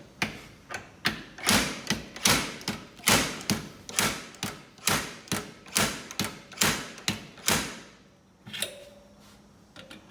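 Slide-hammer dent puller hammered again and again, metal striking metal about twice a second, pulling on a pin welded to the caravan panel to draw out a dent. The blows stop a little before the end.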